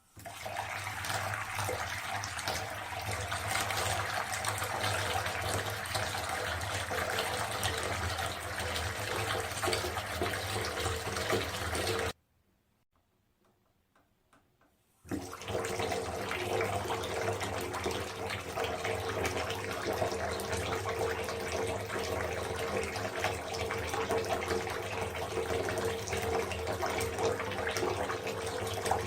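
Water running in a steady trickle, cutting off after about twelve seconds for a near-silent gap of about three seconds with a few faint drips, then starting again and running on.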